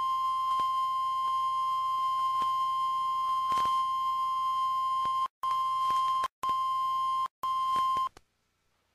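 NOAA Weather Radio warning alarm tone: a single steady tone near 1 kHz, unbroken for about five seconds, then chopped into three shorter pieces before it stops about eight seconds in, with faint clicks and radio hiss under it. It is the alert signal sent ahead of a broadcast tornado or severe thunderstorm warning.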